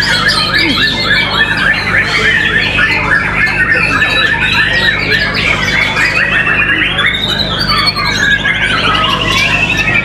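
White-rumped shamas (murai batu) singing over one another in a dense, unbroken chorus of fast phrases and calls. About seven seconds in, a rapid trill climbs in pitch and then slides back down. A steady low hum runs underneath.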